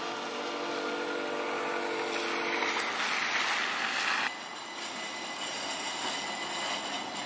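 Electric streetcar and road traffic on a wet street: a hum of several steady pitches, then tyre hiss on wet pavement swelling for about two seconds. The sound cuts off abruptly about four seconds in, leaving a quieter street hum with a faint high whine.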